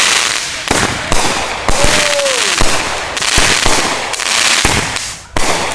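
Fireworks going off: a dense, continuous run of loud, rapid cracks and pops, like a string of firecrackers, that breaks off for a moment near the end and then starts again.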